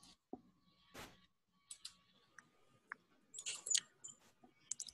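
Faint, irregular clicks and taps of computer keys being pressed.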